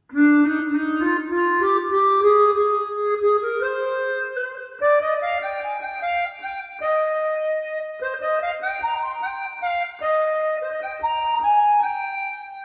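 Music played back through Mission 701 bookshelf speakers: a solo reed-instrument melody of held notes climbing in steps, fading out near the end.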